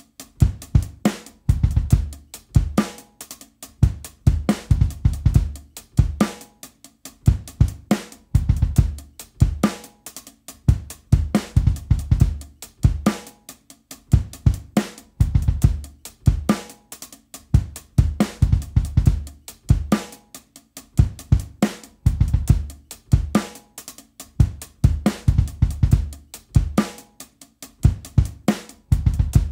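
Drum kit playing a slow hip-hop / trip-hop groove at 70 BPM: heavy kick drum, snare backbeat, hi-hat and cymbals in a steadily repeating loop.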